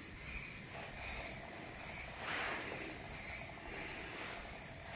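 Folding knife blade scraping across the skin of a leg in short shaving strokes, a series of faint scrapes roughly once a second.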